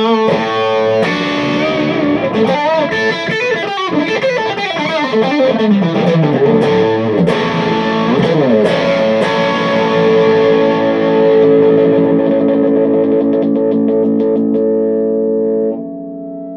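Yamaha SA-800 semi-hollow electric guitar played through a Bad Cat Cub III 15R hand-wired 15-watt tube combo: lead phrases with string bends and slides, then a chord left ringing for several seconds and damped near the end.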